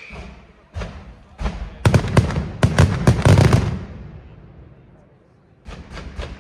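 Fireworks going off: a few separate bangs, then a dense cluster of loud bursts that dies away, followed near the end by a fast run of cracks at about five a second.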